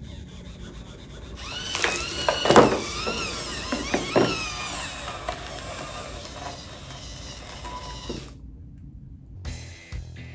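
Hobby servo motors in a foam-cast robotic hand whining as they are driven from a radio-control transmitter. The pitch slides up and down as the hand moves, with a few sharp knocks. The sound cuts off about eight seconds in, and music starts near the end.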